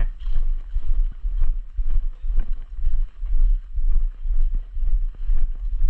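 Footsteps of a person walking, about two steps a second, each step a dull thump with gear rustling and a low rumble on a body-worn camera's microphone.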